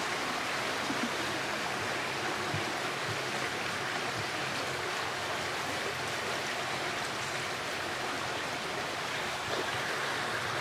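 Steady rushing wash of water along the hull of a moving canal tour boat, even throughout.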